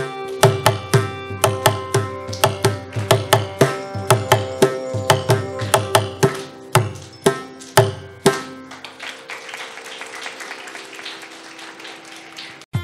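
Mridangam playing quick strokes over a steady drone, closing the piece with a few final strokes about eight seconds in, followed by audience applause.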